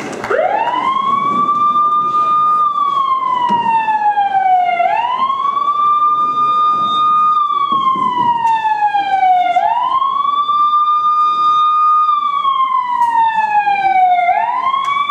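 Siren wailing, starting suddenly: each cycle rises quickly to a high note, holds it for about two seconds, then slides slowly down, repeating about every five seconds.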